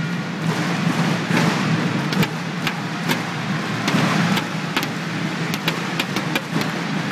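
Badminton play in an indoor hall: irregular sharp clicks of rackets striking shuttlecocks, some near and some from other courts, over a steady hum of the hall.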